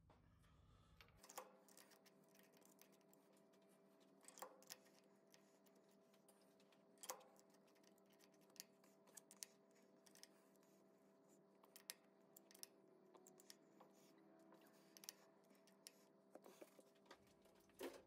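Faint, irregular metallic clicks and clinks as steel height blocks are fitted into the T-slots of a four-jaw lathe chuck and their screws are tightened with a hex key, over a faint steady hum.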